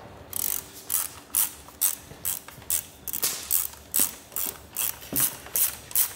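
Socket ratchet wrench clicking in quick back-and-forth strokes, about two a second, as the nuts holding an AEC Routemaster engine's cylinder barrel to its crankcase are undone.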